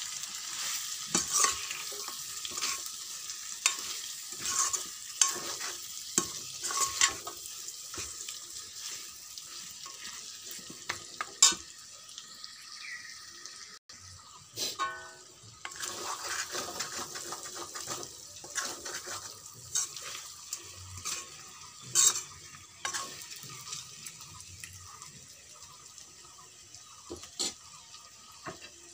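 Pork and masala sizzling in an aluminium kadai while a metal ladle stirs and scrapes through it, with sharp clinks of the ladle against the pan. The sizzle gets quieter toward the end.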